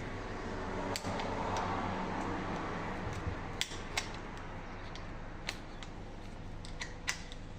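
Metal parts and tools being handled during a steering rack teardown: a few scattered sharp clicks and clinks, with a brief scraping rustle about a second in.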